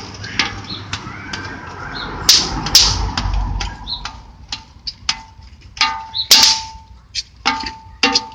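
Handling noise from the cabin air filter and its plastic tray: irregular clicks, taps and knocks with a few louder rustles.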